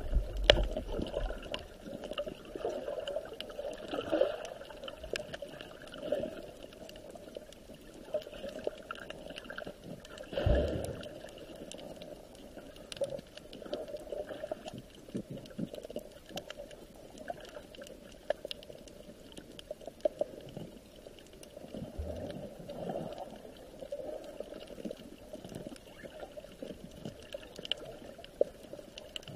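Water gurgling and trickling with a steady underlying hum, broken by scattered soft knocks and one louder thump about ten seconds in.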